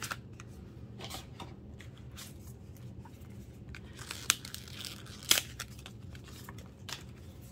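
Paper and card packaging being torn open and handled: scattered rustling and tearing, with two sharp snaps about four and five and a half seconds in.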